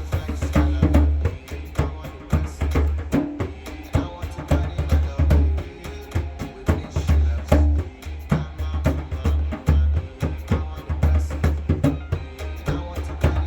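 A drum kit played in a steady, busy groove along to an Afrobeats backing track with a heavy, pulsing bass line.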